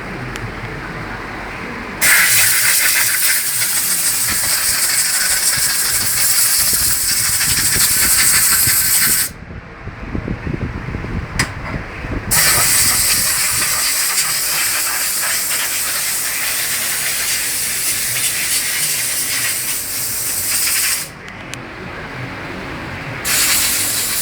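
Loud, steady hiss of a pressurised gas jet in long blasts. It starts about two seconds in, stops for about three seconds midway, then runs again with a short break near the end.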